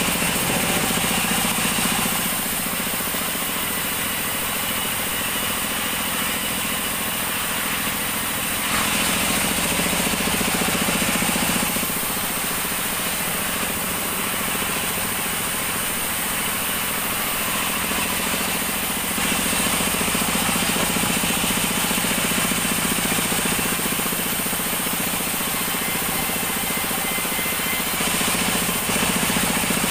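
Sawmill band saw running steadily as acacia planks are fed through it. The sound grows a little louder in several stretches of a few seconds each as the blade cuts.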